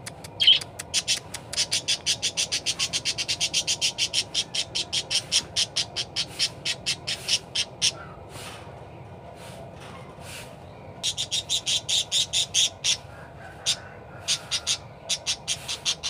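Budgerigar calling in long runs of short, sharp chirps, about four or five a second, breaking off for a few seconds midway before a second dense run and then scattered chirps.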